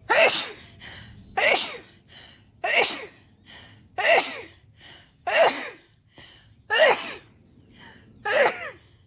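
A woman sneezing in a rapid fit: seven loud, voiced sneezes about a second and a bit apart, each preceded by a short, quick in-breath.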